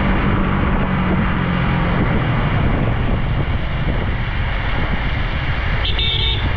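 Motorcycle riding on a wet road: steady wind rush on the microphone over engine rumble and tyre hiss. A short high-pitched tone sounds about six seconds in.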